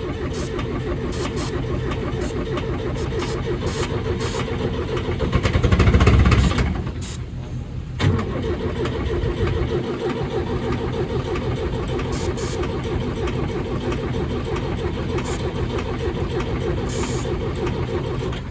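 Case 555C backhoe's diesel engine cranking and running on ether starting fluid, surging loudest about six seconds in, then running on steadily until it falls off at the end. It will not keep going on its own fuel: the fuel filter is only half full, so it is not picking up fuel.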